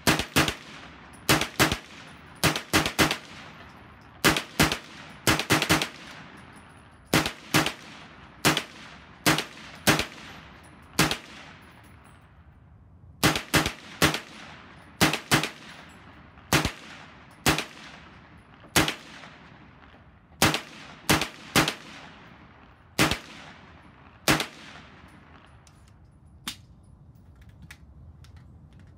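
Colt AR6951 9mm carbine firing semi-automatic, about thirty shots at an uneven pace, often in quick pairs and triplets. The firing stops about 24 seconds in, followed by a couple of faint clicks.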